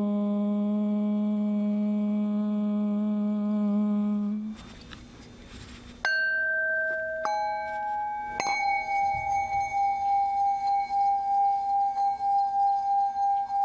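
A woman's voice holds the closing 'M' of a chanted Om as a steady hum, which stops after about four and a half seconds. About six seconds in, a metal singing bowl is struck three times in quick succession with a wooden mallet, the first strike lower in pitch than the next two. The last ringing tone is kept going by rubbing the mallet around the rim, so it swells and fades about twice a second.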